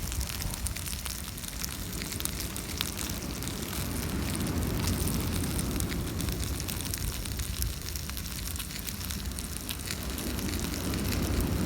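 Wood campfire crackling, with many small scattered pops over a steady low rumble.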